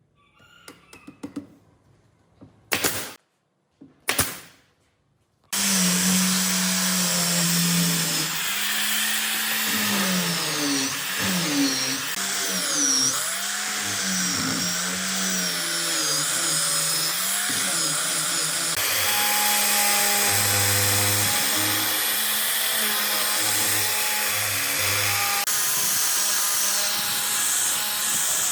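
A few light clicks and two short, loud bursts, then a power tool starts about five and a half seconds in and runs without stopping, its pitch wavering up and down as it works the wood.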